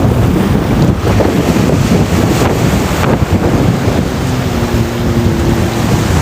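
Wind buffeting the microphone hard over the wash of ocean waves breaking on rocks. A faint steady low hum comes in about four seconds in.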